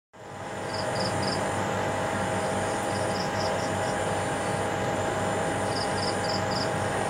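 Steady room ambience: a constant hum and hiss with a few held tones. Three times there is a short run of three or four high chirps.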